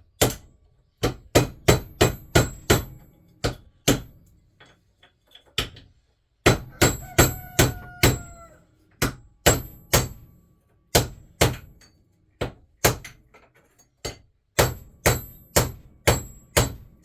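Hammer repeatedly striking a stuck metal part of a ceiling fan motor: dozens of sharp blows in quick runs of several, separated by short pauses, each with a bright metallic ring.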